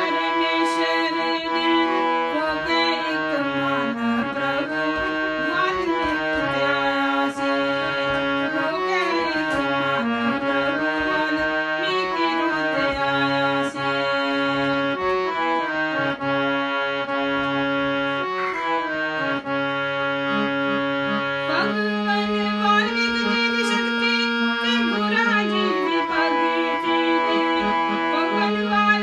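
Harmonium playing a melody in sustained reed notes over a held drone, with a woman's voice singing along, its pitch sliding between notes.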